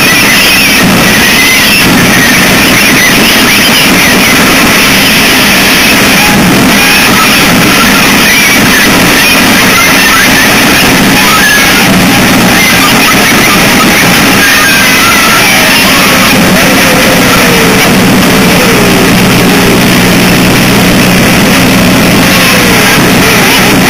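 Harsh noise music: a loud, unbroken wall of distorted noise over a steady low hum, with faint wavering tones sliding downward in the second half.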